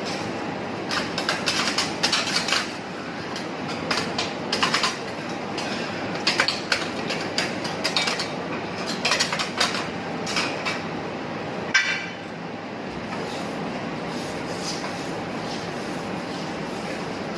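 Metal spatulas clattering, tapping and scraping on a teppanyaki griddle in quick irregular clusters, over a steady hiss; the clatter stops about twelve seconds in, leaving only the hiss.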